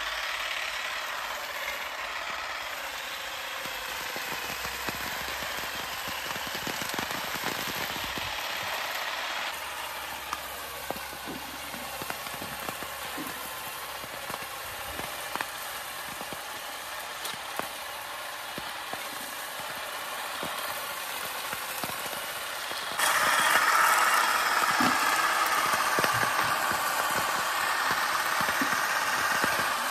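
Battery-powered electric olive harvester running in an olive tree, its motor going steadily while the beating head clatters through the branches, with a constant patter of small clicks. The sound changes abruptly about nine seconds in and gets louder and brighter about 23 seconds in.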